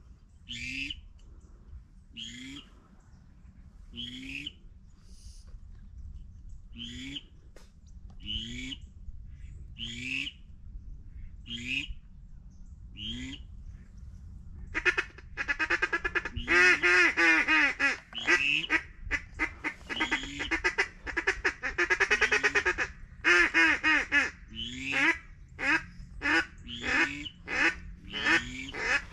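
Ducks quacking: single quacks about every second and a half at first, then a loud run of rapid, overlapping quacking from about halfway, easing to quicker single quacks near the end.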